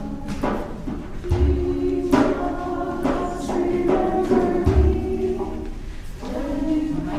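Choral music with sustained voices and chords, punctuated by an occasional deep drum beat.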